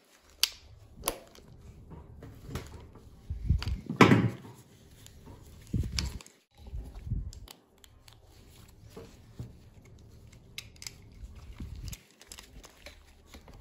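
Wire cutters snipping and clicking as wiring is cut away from an electric scooter's controller, amid rustling handling noise from gloved hands. A louder clunk comes about four seconds in.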